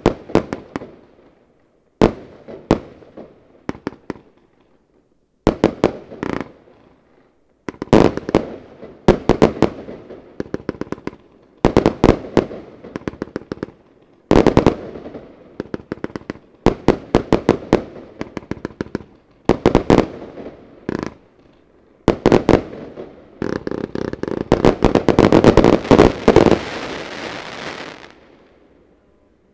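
Lesli 'Tsunami Of Gold' 144-shot firework battery firing in quick volleys of sharp shots and bursts, in clusters a second or two apart. From about 23 s in, a dense stretch of rapid crackling builds, then dies away shortly before the end.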